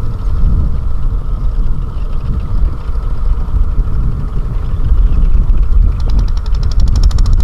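Small tractor engine running with a heavy low rumble. About six seconds in, a fast, even rattle joins it.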